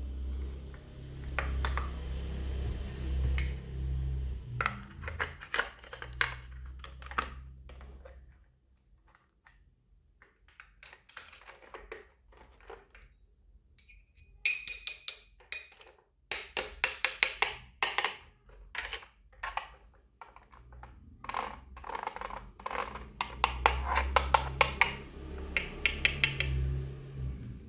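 Small motors of mini RC construction machines running in spells, with a low hum that stops and starts, mixed with many sharp clicks and clatters of small parts and material.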